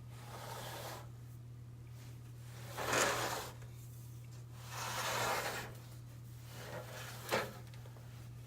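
Handling noises as a box fan is shifted and turned: several rubbing, sliding scrapes and a short sharp knock about seven seconds in, over a steady low hum.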